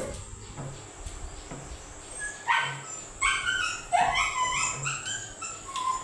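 A dog whining and yipping in a run of short, high calls starting about two and a half seconds in.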